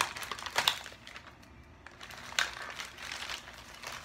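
Plastic wrapping around a toy cap gun crinkling and rustling as hands pull it open, in uneven spurts with louder crackles a little under a second in and about two and a half seconds in.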